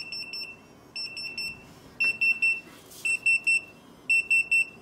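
Retekess TD173 guest pager sounding its call alert after being paged from the base: a high electronic beep repeated in groups of three short beeps, about one group a second.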